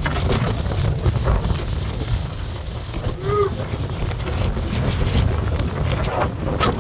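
Gusty tropical-storm wind, about 35 mph, buffeting the microphone with a heavy, uneven rumble. A short pitched cry comes through about three seconds in.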